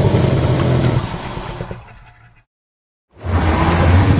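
Tylosaurus creature sound effect: a deep, rough growling call that fades out about two seconds in, then after a short silence a second deep call starts about three seconds in.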